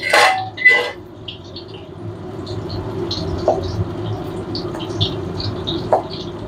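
Tofu deep-frying in hot oil in a wok: a steady sizzle with many small crackling pops that grows louder after the first couple of seconds. A cleaver knocks on a wooden cutting board while slicing a tomato, with two sharper knocks in the first second and single knocks later.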